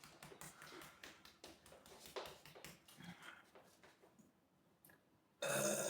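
Faint small clicks and taps, then about five and a half seconds in a woman lets out a loud burp, brought up by the carbonated Red Bull she has been drinking.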